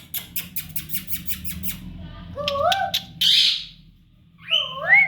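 Baby parrot calling: a fast run of about seven sharp clicks a second, then short rising calls and a brief harsh squawk.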